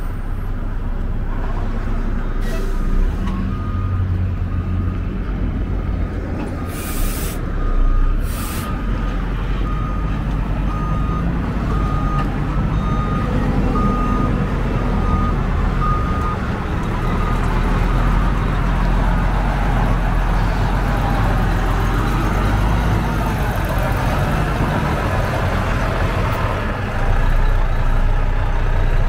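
Heavy diesel truck engine running steadily. A reversing alarm beeps about once a second for some thirteen seconds, and two short bursts of air-brake hiss come about seven and eight seconds in.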